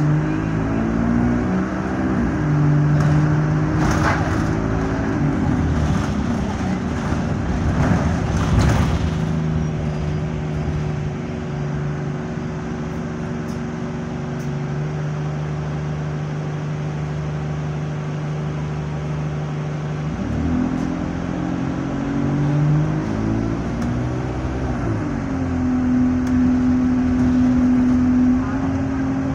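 Alexander Dennis Enviro200 bus engine with Allison automatic gearbox heard from inside the saloon, its pitch climbing in steps as the bus pulls through the gears, holding steady for several seconds mid-way, then rising again. The gearbox is in limp mode with no kickdown. A few brief knocks and rattles come about four and eight seconds in.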